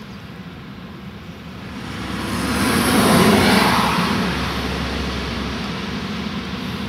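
A vehicle passing by: a rushing sound that swells to a peak about three seconds in, then slowly fades.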